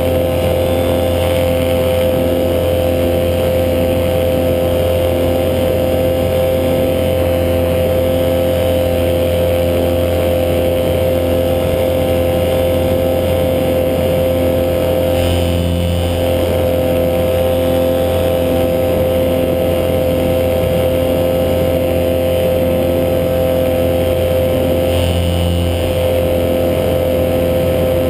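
A paramotor's two-stroke Yamaha RD 135 engine and propeller running at a steady cruising throttle in flight, a constant drone with an unchanging pitch.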